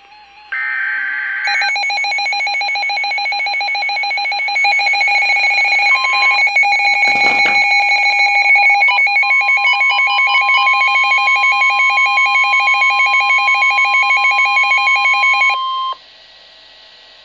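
Emergency alert tones for a severe thunderstorm warning. A rapidly pulsing electronic alarm is joined, about nine seconds in, by a steady single-pitched warning tone, and everything cuts off about sixteen seconds in. A brief noisy thump comes about seven seconds in.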